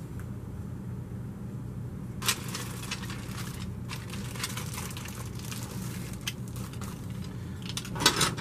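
Thin plastic bag crinkling and rustling as small plastic toy pieces are handled, starting about two seconds in and loudest near the end, over a low steady hum.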